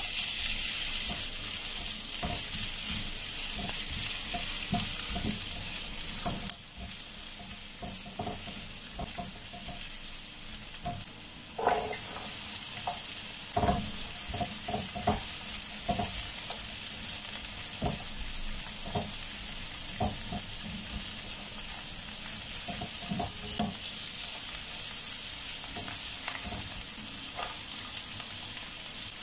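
Chopped food sizzling in hot oil in a nonstick frying pan, stirred with a spatula that scrapes and taps the pan. The sizzle starts sharply, eases after about six seconds, and grows again about twelve seconds in as chopped onion goes into the pan.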